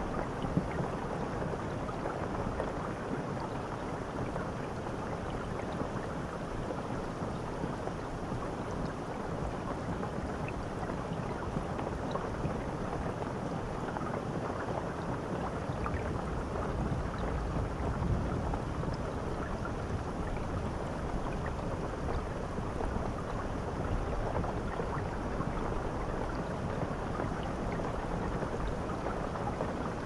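Handheld shower head running, spraying a steady stream of water onto a shower tray: an even, unbroken rush of falling water.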